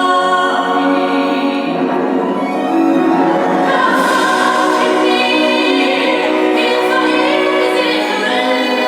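A woman singing a slow ballad in held notes over musical accompaniment.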